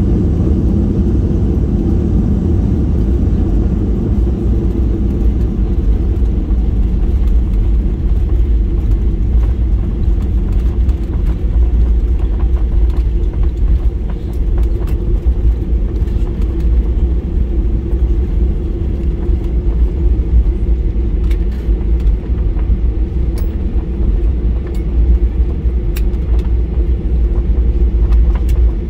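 Steady low rumble of a Boeing 737-800 heard from inside the passenger cabin, with no change in pitch.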